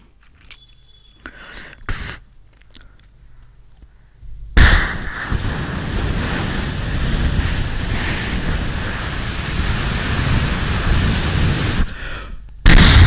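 Mouth-made imitation of a rocket launcher firing, blown through cupped hands into a microphone. A sudden blast comes about four and a half seconds in and runs on as a long steady rushing hiss for about seven seconds, cuts off, and a second loud blast follows near the end.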